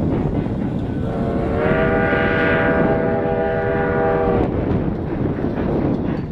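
Steam whistle of Virginia & Truckee No. 29, a 2-8-0 steam locomotive, sounding one long blast of several notes at once, starting about a second in and lasting about three and a half seconds. Wind buffets the microphone throughout.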